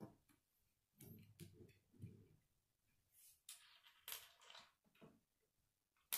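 Faint handling of plastic K'nex parts as a long grey rod is fitted into connectors at the top of the model: soft rubbing and scraping, then one sharp click near the end.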